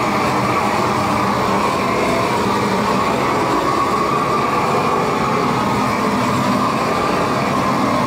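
Propane torch on a long wand burning steadily, a continuous loud rush of flame as it chars the wooden beams.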